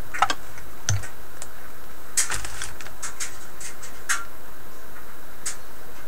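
Scattered sharp clicks and taps of tools and parts being handled on a vintage tube radio's metal chassis, about a dozen at uneven spacing, over a steady faint hiss.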